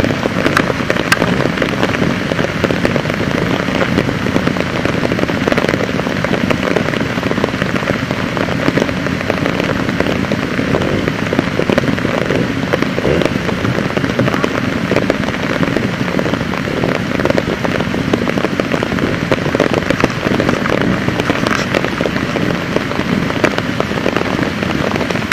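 Torrential rain falling: a loud, steady, dense crackle of drops.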